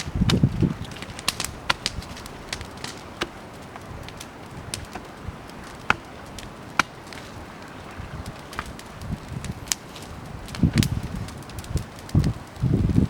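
Bonfire crackling, with irregular sharp pops and snaps throughout and a few low rumbling surges, near the start and again late on.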